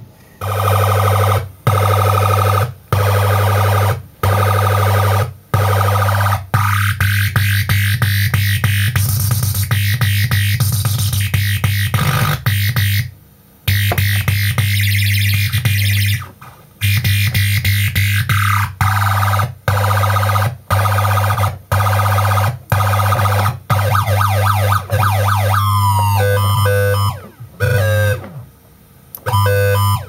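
Circuit-bent UM3561 siren sound-generator chip playing harsh electronic tones over a steady low buzz. The sound cuts in and out sharply many times and changes character as its buttons and knobs are worked. Near the end it goes into warbling siren sweeps.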